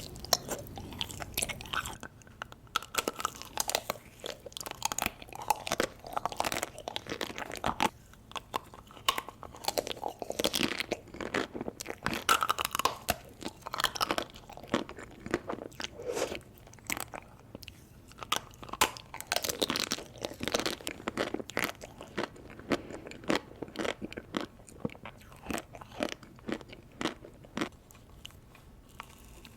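Close-miked eating of ice cream: irregular crunching bites, chewing and wet mouth sounds, with many sharp clicks.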